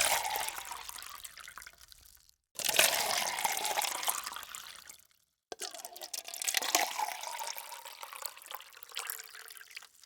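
Water being poured into a cup, three separate pours, each starting loud and tailing off before a short silence.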